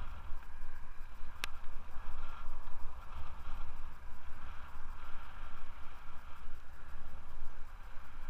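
Wind buffeting a helmet-mounted microphone as a Scott Aspect 770 mountain bike rolls along asphalt, with a steady hiss of tyre noise underneath. One sharp click about a second and a half in.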